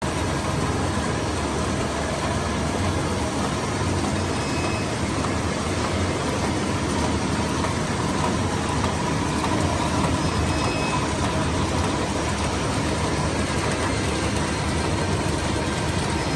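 Disposable cutlery packing machine running: a steady mechanical whir with a faint constant whine.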